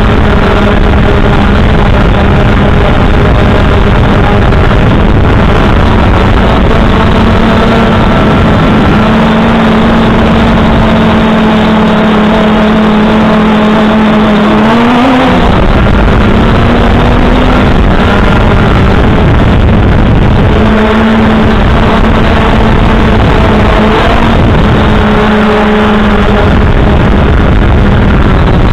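Electric motors and propellers of a 3DR multirotor drone heard through its onboard camera microphone: a loud, steady buzzing hum over wind noise. The pitch rises and wobbles briefly about halfway through as the motors change speed, and shifts a little a few more times after that.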